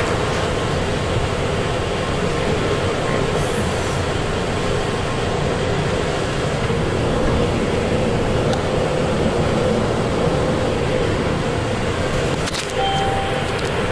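Interior of an airport people-mover train running: a steady rumble with a constant hum. A brief high tone sounds near the end.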